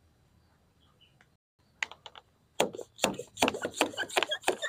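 Hand trigger sprayer being squeezed over and over onto potting mix, a quick run of short spritzes about three or four a second, starting about two seconds in after near silence.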